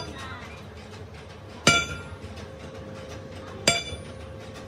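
Two heavy hammer blows on a steel truck axle shaft, about two seconds apart, each leaving the shaft ringing briefly as it is hammered straight across a support.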